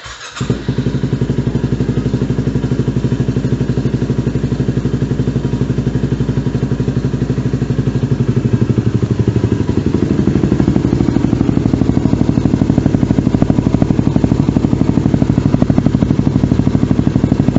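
Yamaha WR250R's single-cylinder 250 cc four-stroke engine fires up through an FMF aftermarket muffler and settles into an evenly pulsing idle. The idle grows a little louder from about eight to ten seconds in.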